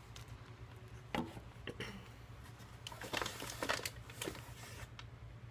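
Close-miked eating sounds of a chicken wrap being chewed and handled: a few sharp clicks about a second in, then a denser run of quick crackly clicks from about three seconds in, over a steady low hum.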